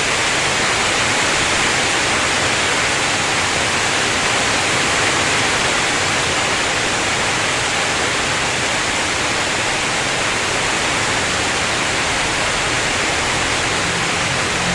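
Heavy downpour of rain, a loud steady hiss. A low rumble of thunder begins near the end.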